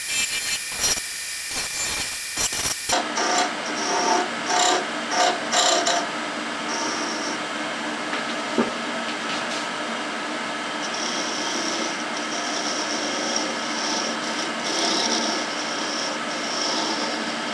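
Wood lathe running while a narrow turning tool scrapes and cuts a small piece of softwood, the cuts coming in bursts. The sound changes abruptly about three seconds in.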